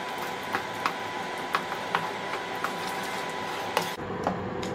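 A spatula stirring a thick milk-powder and papaya mixture in a nonstick pan, making irregular light taps and scrapes against the pan several times a second, over a steady hum from the induction cooktop.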